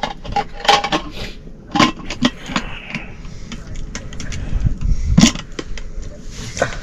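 Irregular knocks and clatters of hard objects being handled, the loudest a sharp knock about five seconds in.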